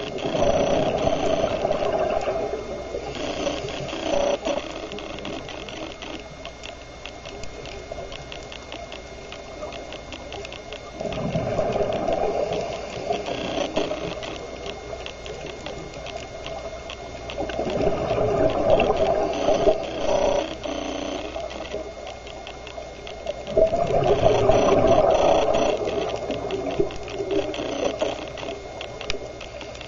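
Scuba diver's regulator breathing underwater: exhaled bubbles rush out in four surges, several seconds apart. A faint, fast, even ticking runs between the breaths.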